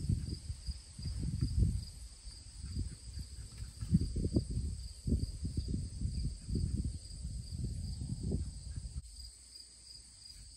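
Insects chirring in two steady, high, finely pulsing tones, with a low, uneven rumble on the microphone that comes and goes and dies away near the end.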